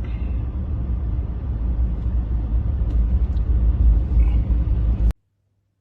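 Loud, steady low rumbling noise that cuts off suddenly about five seconds in.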